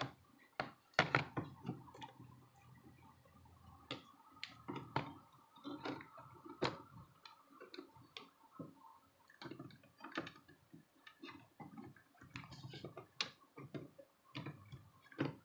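Irregular light clicks and taps of a replacement LCD panel being handled and set back into an HP 2000 laptop's display lid, with a few sharper knocks.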